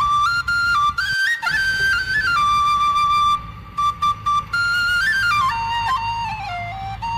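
Background music: a flute melody moving in stepped notes, with a low rumble underneath.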